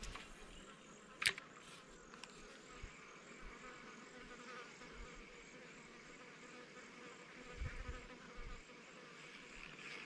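Insects buzzing steadily in the bush, with handling noises from a spinning reel: a sharp click about a second in and a few soft low thumps near the end.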